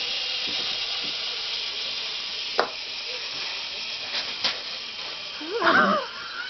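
One loud sneeze near the end, set off by pepper up the nose, over a steady background hiss with a few faint clicks before it.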